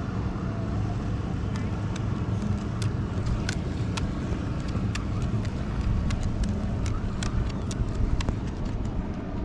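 A steady low rumble, with scattered light clicks and taps close by as a dog moves right against the microphone.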